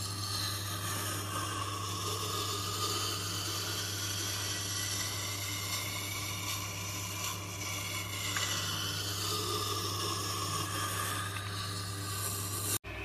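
A Fallkniven A1 knife blade being ground on a Tormek's water-fed grindstone: a steady hiss and scrape of steel on the turning wet stone over the machine's constant motor hum. The scraping tone slowly rises and falls as the blade is worked along the wheel.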